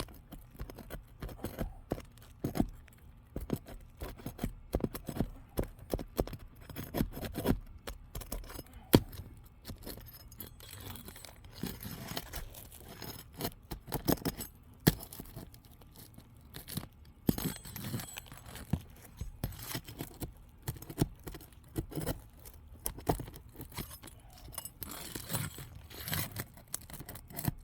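Roofer's hatchet and roof snake working under asphalt 3-tab shingles: irregular scrapes, clicks and knocks as the upper rows are pried up and the first row of nails is pulled out.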